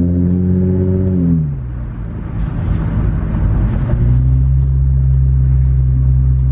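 Lexus IS350's 3.5-litre V6 driving the car, its revs rising slightly and then falling sharply about a second in, before settling into a steady lower drone with road noise. No clunking comes from the front suspension on its newly fitted sway bar links.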